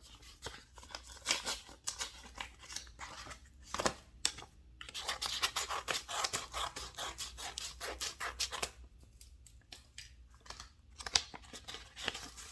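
A mailer package being cut and torn open by hand, with a dense run of crackling and rustling from the packaging.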